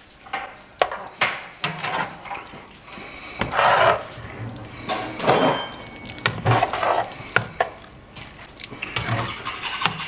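Wooden spoon stirring thick tomato sauce in a cast-iron Dutch oven, scraping through the sauce with irregular sharp knocks against the pot.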